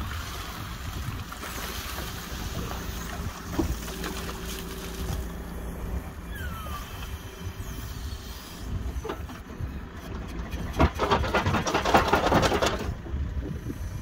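JCB backhoe loader running while its digging arm works a flooded pond pit, with wind rumbling on the microphone. Near the end comes a loud rattling, crackling stretch of about two seconds.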